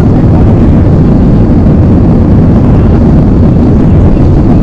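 Airbus A320's jet engines at takeoff thrust during the takeoff roll, heard from inside the cabin behind the wing: a loud, steady, deep roar.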